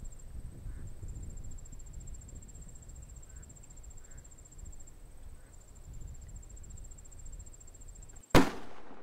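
A single gunshot about eight seconds in, sharp and by far the loudest sound, with a short decaying tail. Before it, insects buzz steadily on a high note over a low rumble.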